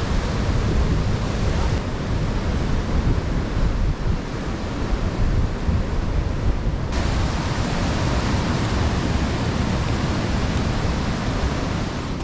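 Steady rushing noise of wind buffeting the microphone, heaviest in the low rumble, with no distinct events in it.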